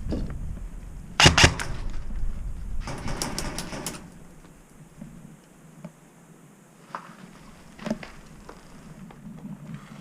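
Airsoft guns firing in semi-auto: two sharp shots about a second in, then a quick string of shots, then single shots later, echoing in a small indoor room.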